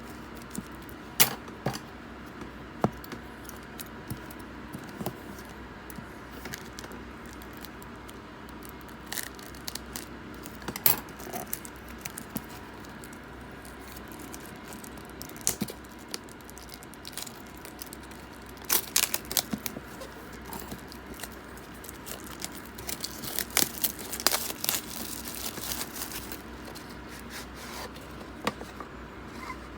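Trading card packs and cards being handled: wrappers crinkling and tearing open, and cards clicking and tapping, in scattered bursts. There are runs of rapid crackling about 19 s in and from about 23 to 26 s in, over a steady low background hum.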